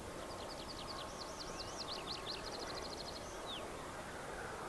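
A small songbird sings one song phrase lasting about three seconds: a run of quick looping up-and-down notes that speeds into a fast trill and ends with a falling note. Beneath it runs a faint steady hum from the Pipistrel Velis Electro electric plane's motor and propeller flying overhead.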